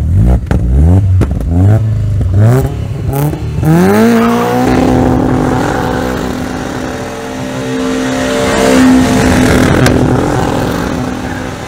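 A BMW E30's swapped-in Toyota 3S-GE BEAMS four-cylinder engine revs in a series of quick rising blips, then climbs about four seconds in and is held at high revs. Over the held note comes the hiss and squeal of the rear tyres spinning in a smoky burnout.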